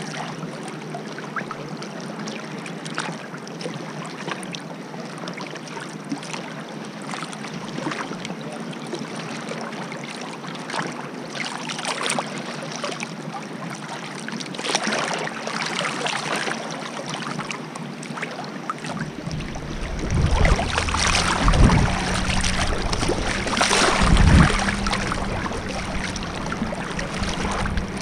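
Water sloshing and lapping around a wakeboarder waiting in the lake, with a towboat's engine humming steadily under it. About 19 seconds in, a deep rushing of water and louder splashing take over as the boat tows the rider through the water.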